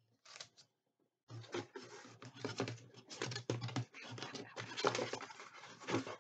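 Paper and packaging rustling and crackling as items are handled and sorted out of a box. It starts briefly, then carries on densely from about a second in as an irregular run of quick scratchy crackles.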